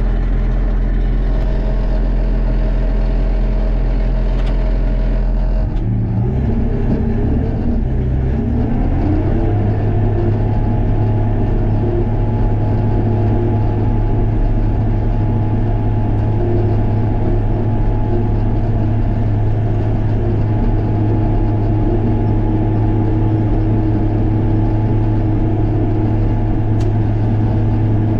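Case 850K crawler dozer's diesel engine running at low idle, then revving up about six seconds in and holding steady at a higher working speed.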